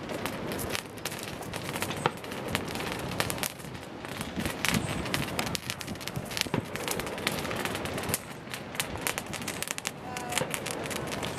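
Many fireworks going off: a dense, irregular run of pops, bangs and crackles with hardly a pause.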